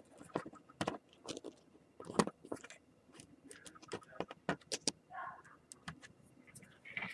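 Scattered light clicks, taps and soft scrapes of fingers pressing a laptop display cable into a narrow plastic groove in the screen lid.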